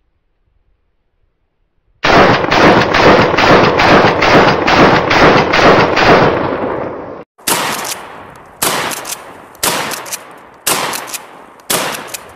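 Shotgun fire: a rapid string of shots, about four a second, lasting about five seconds. After a brief cut come single shots spaced about a second apart.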